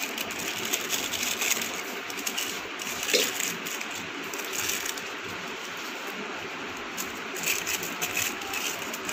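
Thick brownie batter being poured and scraped out of a plastic mixing bowl into a lined steel bowl: soft scraping with a few light knocks over a steady hiss.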